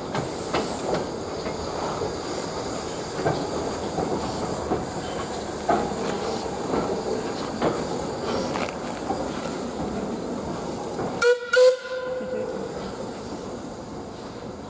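Double-headed steam train pulling away down the line, its running noise and clicking wheels slowly fading. About eleven seconds in, a steam locomotive whistle gives two short, loud blasts.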